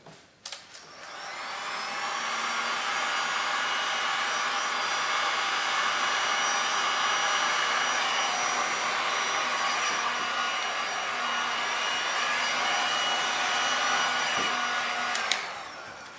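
Heat gun switched on with a click, building up to a steady blowing whir with a thin steady whine as it heats the epoxy resin, then switched off with a click near the end and winding down.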